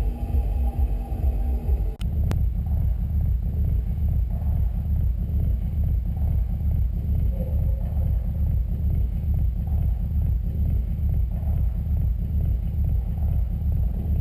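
Steady low rumble of a car driving, engine and road noise heard from inside, with an abrupt cut about two seconds in.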